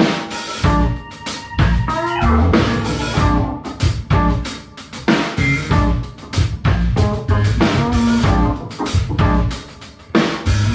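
A small band playing instrumental fusion: drum kit, electric bass, hollow-body electric guitar and keyboards. Steady drum strokes run under the bass and guitar lines, with a brief drop in loudness near the end.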